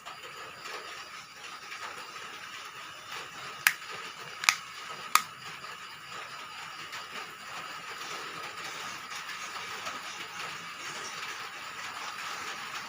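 Three sharp clicks, a bit less than a second apart, over a steady faint hiss.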